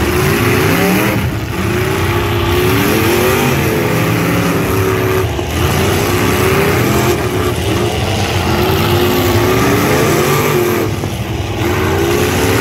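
Demolition-derby pickup truck engines revving hard under load, their pitch repeatedly rising and falling as the trucks push against each other in deep mud.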